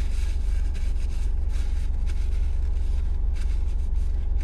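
Car engine idling steadily, a low hum heard from inside the cabin, with light rustling of a paper napkin as hands are wiped.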